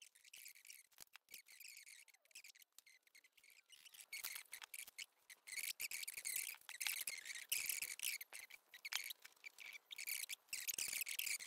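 A pen scratching across thin card as lines are marked out, in many short strokes that grow louder and busier from about four seconds in. Before that, softer rustling of card being handled and folded.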